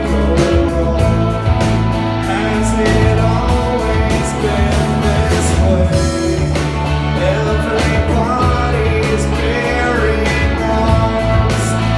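A rock band playing a song live, with a steady drumbeat under sustained instrument parts and a singing voice.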